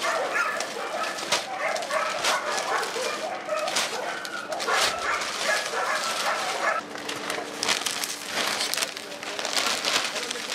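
Dogs barking and whining repeatedly, mostly in the first two-thirds. Under them, plastic sacks of pet food rustle and knock as they are lifted and dropped into a pickup truck bed.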